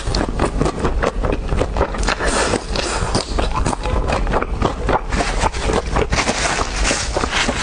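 Close-miked eating: food being chewed and crunched, with a dense run of rapid sharp crackles and clicks that never lets up.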